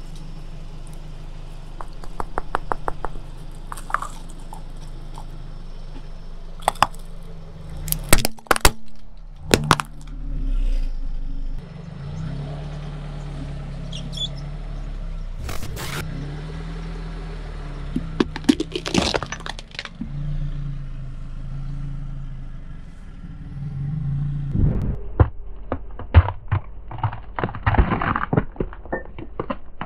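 A car engine runs throughout, its pitch rising and falling as the car creeps forward. Sharp cracks come around eight to ten seconds in and again in the middle as the tyre crushes hard objects, coconuts among them. Near the end a dense run of cracking and crunching is a carved pumpkin splitting under the wheel.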